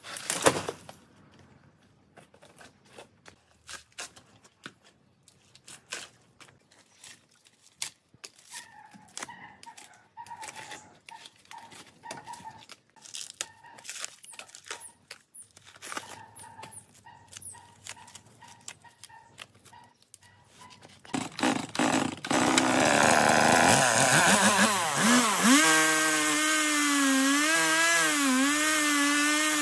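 Scattered cracks and snaps of dry, rotten wood and bark being pulled off a tree stump by hand. About three-quarters of the way through, a two-stroke chainsaw starts, revs up and runs loud, its pitch wavering.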